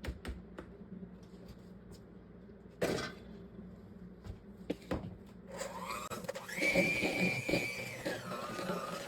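A few knocks and scrapes of a utensil against a bowl and container as applesauce goes into the batter, then about five seconds in an electric mixer starts whining, its pitch stepping up and later dropping and wavering as it works the thick batter.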